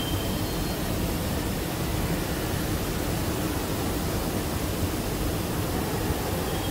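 Steady factory background noise on a tractor assembly line: an even, unbroken rush with no distinct machine events.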